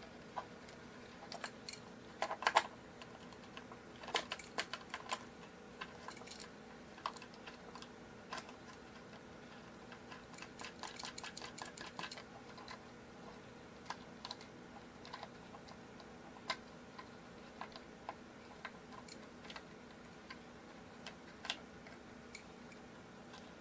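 Scattered light clicks and taps of guitar hardware and small tools being handled while the guitar is dismantled, with a quick run of clicks about ten to twelve seconds in. A faint steady hum underneath.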